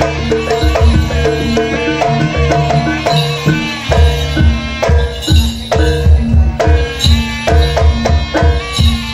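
Live Javanese gamelan music accompanying a jaranan dance: hand-drum (kendang) strokes over ringing gongs and metallophones in a steady, driving rhythm.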